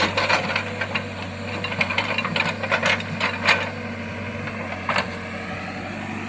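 Backhoe loader's diesel engine running steadily, with frequent sharp clanks and rattles from the working machine.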